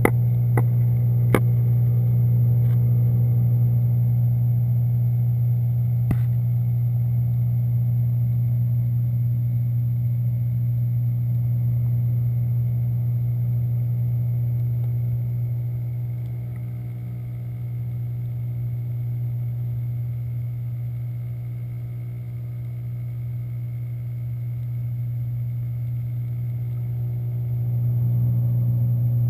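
Steady low electrical hum of an aquarium pump running, heard through the water by a submerged camera. A few sharp clicks in the first few seconds; the hum eases a little midway and comes back up near the end.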